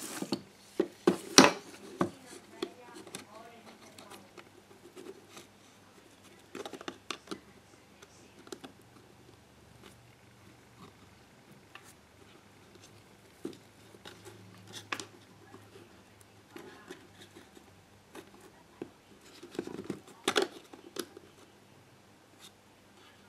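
Irregular clicks, taps and light knocks of a GHD hair straightener's plastic heater-plate housings and parts being handled and fitted together on a workbench, with a busy cluster in the first two seconds and another about twenty seconds in.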